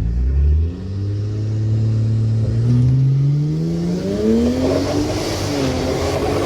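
BMW N54 twin-turbo straight-six engine under hard acceleration, its pitch climbing steadily for about four seconds, then dipping and levelling off. The owner believes the engine has a cracked piston.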